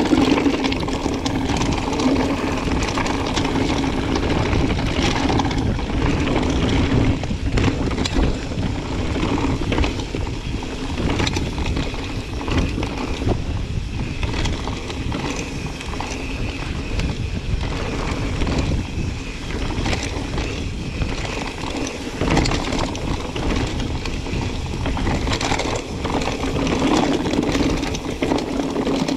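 Mountain bike rolling over a rough, stony trail: continuous tyre noise with frequent knocks and rattles from the bike.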